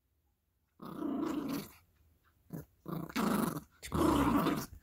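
Yorkshire terrier puppy play-growling in several rough bursts while tugging on a plush toy, starting about a second in.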